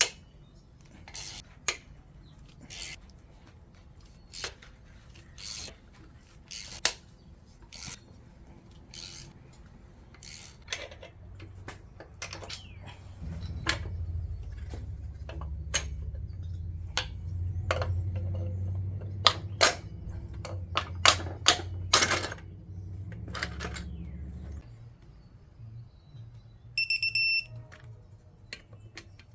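Metal parts and hand tools clinking and knocking as the main caps and girdle of a Honda B18C engine block are handled: a scatter of sharp clinks, busiest in the middle. A low rumble runs under the clinks for about ten seconds midway, and a short electronic beep sounds near the end.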